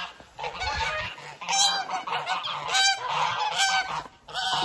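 A flock of domestic geese honking repeatedly, several birds calling over one another in short, nasal honks.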